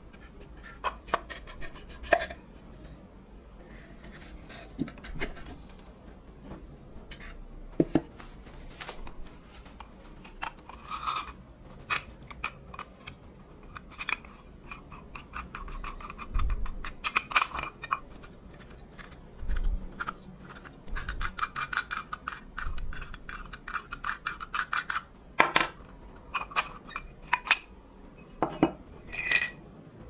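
Rusty metal parts of an antique hand coffee grinder handled during disassembly: the hopper, burr housing and threaded shaft clink, rub and knock against each other and the wooden bench. Irregular small clicks throughout, busier in the second half, with a few louder knocks near the end.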